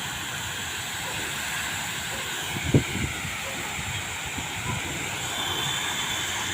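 Waterfall with water falling and splashing in a steady rush, with a brief low thump about three seconds in.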